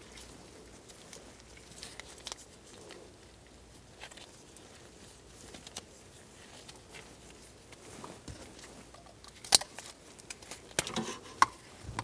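Gloved hands handling a taped automotive wiring harness: faint rustling of wires and tape, with scattered small clicks and a sharper click about nine and a half seconds in.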